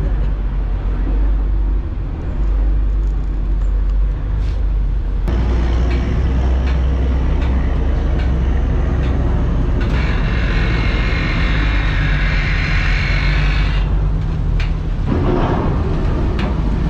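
Steady low engine rumble of a vehicle ferry as it comes in to dock, with a hissing noise for about four seconds midway.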